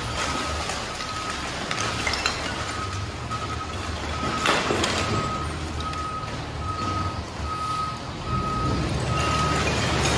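Garbage truck's engine running while its load of trash slides out of the open tailgate into the pit, with a backup alarm beeping steadily, about three beeps every two seconds. There is a sharp knock about halfway through, and the engine grows louder near the end.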